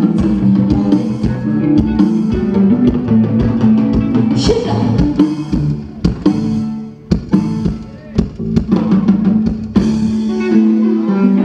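Band music with a drum kit, bass and guitar playing at a sound check. A little past the middle it thins to a few separate drum hits for about two seconds, then the full band comes back in.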